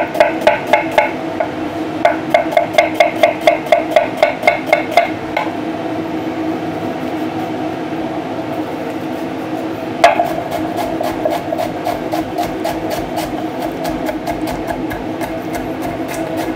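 Chef's knife chopping an onion on a bamboo cutting board: even knocks about three a second, stopping after about five seconds. A sharp knock comes about ten seconds in, then quicker, lighter chopping, over a steady low hum.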